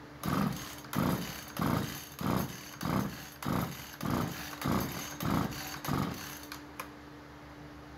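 Husqvarna 440 chainsaw's recoil starter pulled about ten times in quick succession, one pull every two-thirds of a second, stopping about six seconds in. The engine is cranked with a compression gauge in the spark plug hole and does not fire; the gauge reads only 35 psi, the sign of internal engine wear.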